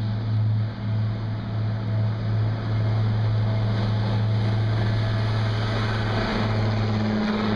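A steady, low engine hum runs throughout, with a hiss on top. Its lowest note drops out shortly before the end.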